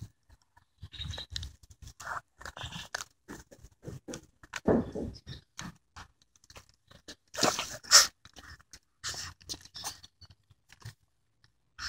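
A small dog gnawing a bone: irregular crunches, the loudest about eight seconds in.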